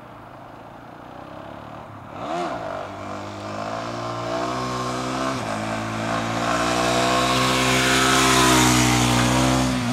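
Motorcycle engine approaching while the bike is wheelied with two people aboard. A short rev comes about two seconds in, then the engine note grows steadily louder as the bike nears, with a brief dip about five seconds in. It is loudest near the end and falls away as the bike passes.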